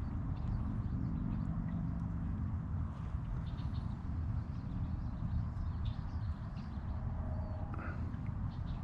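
Steady low outdoor rumble with faint, scattered bird chirps above it.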